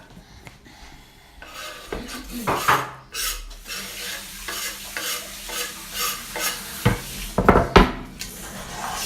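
Kitchen utensil scraping and clattering against a dish in repeated strokes, about two a second, with a couple of louder knocks near the end: vegetables being worked in a bowl or tool while the salad is made.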